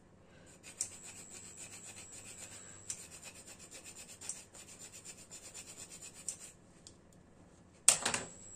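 A whole nutmeg grated on a small handheld rasp grater, with rapid, even scraping strokes that start about a second in and stop after about six seconds. Near the end comes a single sharp knock, the loudest sound.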